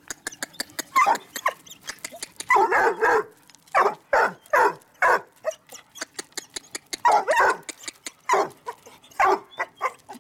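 Puppies barking and yipping in repeated short bursts as they play together, with sharp clicks in between.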